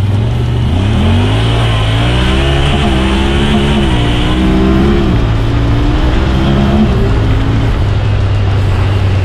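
Honda Talon side-by-side's 999 cc parallel-twin engine pulling the machine along under throttle: its pitch climbs about a second in, then rises and falls with the throttle, dropping back about five seconds in and settling into a steadier low drone near the end.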